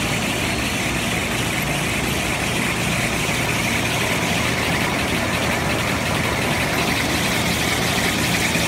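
Glue-lamination toilet tissue and kitchen towel rewinder running steadily, its rollers and paper web giving a continuous hum under an even hiss.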